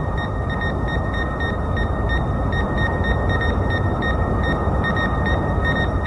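A sci-fi cartoon sound effect: a steady, loud rumbling hiss with a rapid, regular electronic beeping over it, about four high beeps a second. The rumble fades near the end while the beeping goes on.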